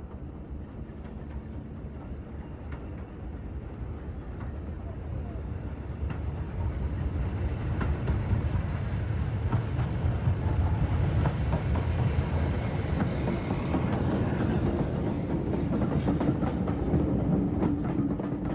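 BR Standard Class 4 2-6-4 tank steam locomotive hauling coaches, growing louder as it approaches and passes close by, then its coaches rolling past with clicking over the rail joints.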